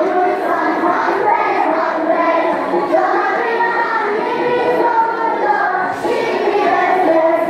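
A group of young children singing a song together, loud and without a break.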